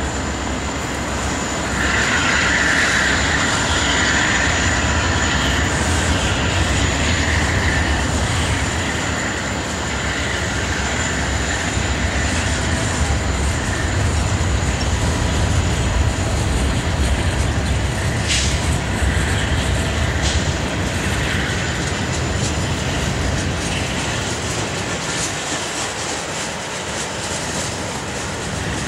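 Freight train's cars rolling steadily past: steel wheels rumbling and clacking over the rail joints, with a thin high wheel squeal in the first several seconds and one sharp click about eighteen seconds in.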